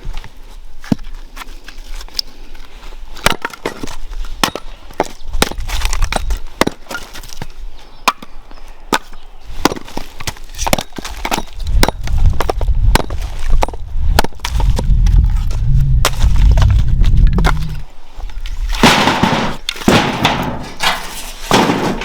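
Firewood cracking and knocking in a rapid, irregular series of sharp snaps, with a low rumble through the middle stretch.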